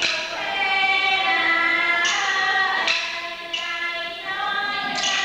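Thai classical singing accompanying a dance-drama: a woman's voice holding long, sliding, wavering notes, with a few sharp percussive strikes.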